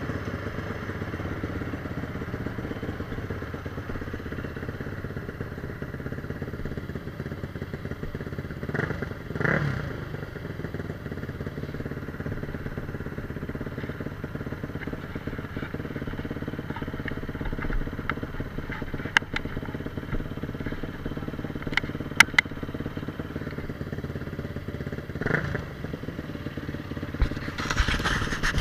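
Motorcycle engine running steadily, revved up briefly twice, about nine seconds in and again near the end, with a few sharp clicks in between.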